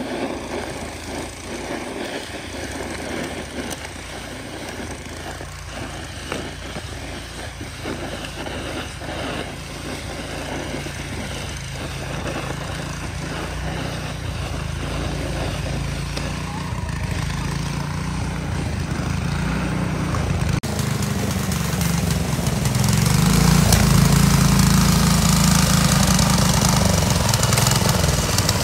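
An engine running steadily with no break, getting louder over the last part and stepping up abruptly about two-thirds of the way through.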